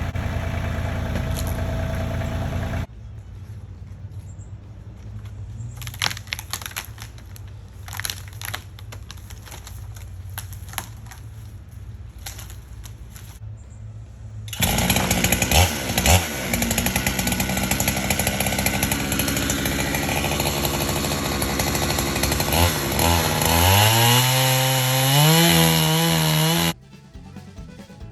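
Gas chainsaw cutting into a large pecan log, running loud, then revving up steeply a few seconds before it cuts off abruptly near the end. Before it comes an engine idling for a few seconds, then a quieter stretch with scattered knocks.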